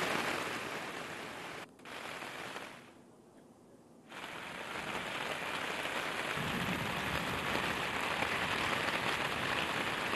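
Rain falling with a steady hiss. It drops away briefly twice in the first half, and a low rumble joins it a little over six seconds in.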